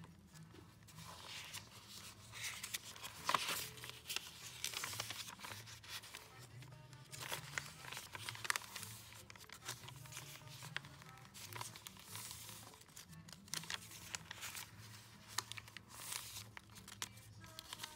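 Paper pages of a notebook planner rustling as they are turned and pressed flat by hand, in irregular strokes, over quiet background music.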